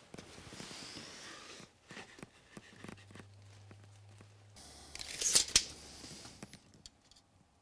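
Handling noises as a wooden board is set against a metal motor housing, with scattered clicks and scrapes. About five seconds in, a steel tape measure blade is pulled out with a short scratchy rattle, the loudest sound.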